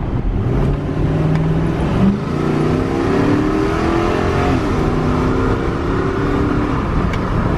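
Nissan Patrol SUV's engine accelerating hard, its pitch climbing, dropping back at a gear change about halfway through, then climbing again.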